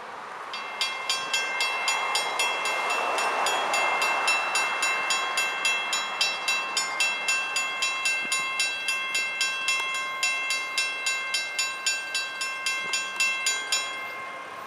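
Railroad grade crossing bell ringing, about three strikes a second. It starts about half a second in and stops near the end.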